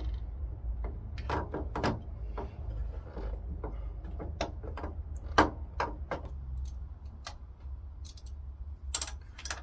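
Irregular clicks and small knocks of hand work on a motorcycle carburettor as parts are refitted, over a steady low hum.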